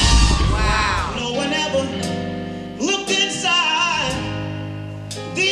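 Male vocalist singing live with a band behind him, held notes that slide in pitch over keyboard accompaniment. A loud hit from the band comes at the very start.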